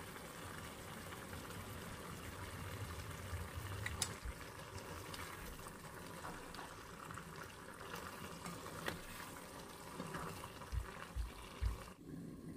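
Pork kaldereta stew simmering in a nonstick pan, with a steady bubbling hiss. A couple of sharp clicks come through, and a few low knocks near the end.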